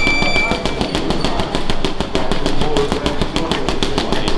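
Rapid flurry of punches from wrapped hands on a Nazo Boxing heavy bag: quick slaps in an even rhythm, about seven a second. A high electronic beep fades out within the first second.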